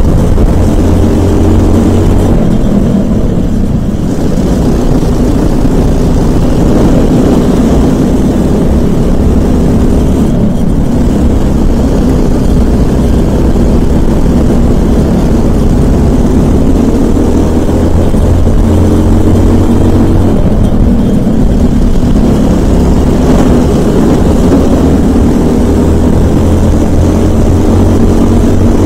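Briggs & Stratton LO206 single-cylinder four-stroke kart engine running at race pace, its pitch climbing as it accelerates and falling away three times when it slows for corners.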